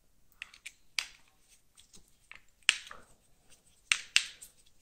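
A series of sharp, irregularly spaced metal clicks as a folding hex-key set is handled and its hex key is fitted into a folding knife's screw, with the loudest clicks in the second half.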